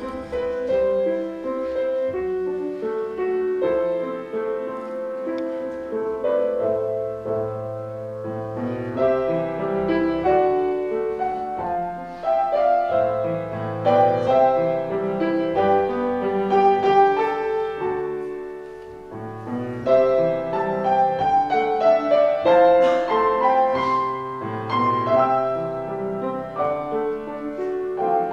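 A piano playing a slow instrumental piece, melody over low bass notes, played live.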